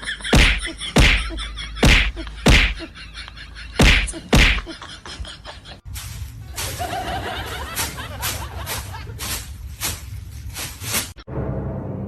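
A run of loud, sharp slaps or smacks, about one every half second or so, then a second burst of quicker, fainter smacks over background noise.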